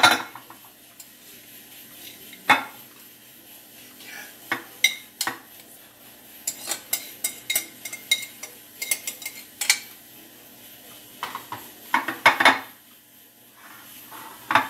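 Metal spoon scraping and clinking against glass bowls while potato salad is scooped from one glass bowl into a square glass dish. Irregular light clinks, with a dense run in the middle and a few louder knocks: at the start, about two and a half seconds in, and around twelve seconds in.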